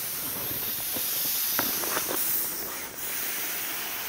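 Air hissing steadily out of the open valve of a self-inflating camping mat as it is rolled up and pressed down under the knees to squeeze it flat, with a few short rustles about midway.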